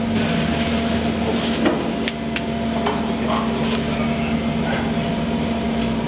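Scattered light metal taps and clicks as a steel plate is worked into a cut-out in a steel hull and wedged with a screwdriver, with one sharper knock about two seconds in. A steady machine hum runs underneath.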